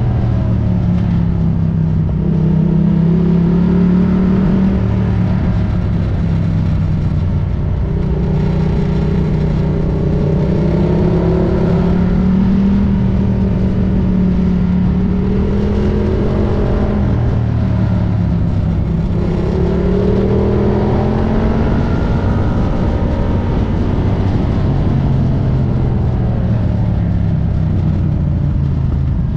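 Ducati Diavel motorcycle engine running under way, its note rising and falling again and again with the throttle.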